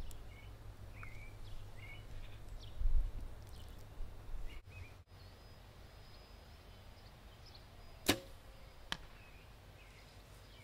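A 60-lb Mathews compound bow is shot once: a single sharp snap of the string with a short ring. About a second later comes a smaller crack as the arrow strikes the target 50 yards downrange. Birds chirp earlier on.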